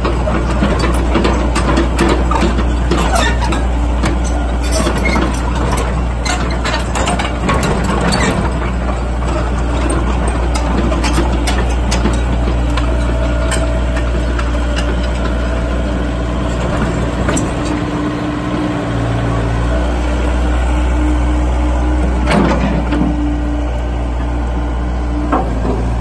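Excavator's diesel engine idling steadily, with scattered clicks and knocks, most of them in the first several seconds.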